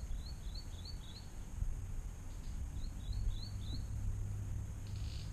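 A bird calling: a quick run of four short high notes, repeated once about two and a half seconds later, over a steady low rumble.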